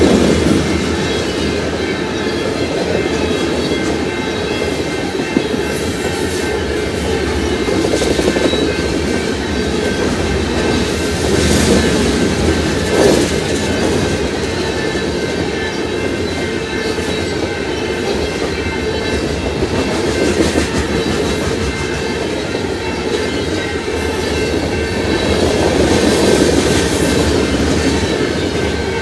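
Freight train of covered hopper cars rolling past steadily, with the continuous noise of steel wheels running on the rails.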